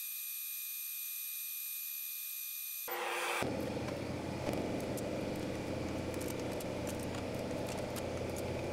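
Steady noise of the laser cutter's fan and air assist running, thin and high with steady tones for the first three seconds, then fuller and lower from about three seconds in. Light plastic clicks join as cut acrylic pieces are lifted off the slatted bed.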